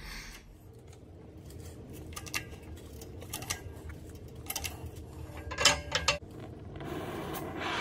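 Scattered light metallic clinks and taps of steel parts and tools at a hydraulic press holding a rusted driveshaft yoke, over a faint low hum, with a quick run of clinks about six seconds in. Near the end a hiss builds.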